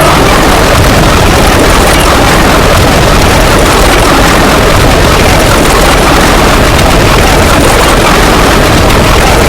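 Loud, dense, steady noise with no clear pitch or rhythm: many sound effects layered at once into one continuous din.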